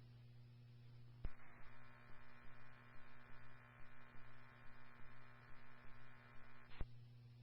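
Police scanner radio with a steady hum. A transmission keys open with a click about a second in and carries a buzzy, pulsing tone with no clear words, then unkeys with a second click near the end.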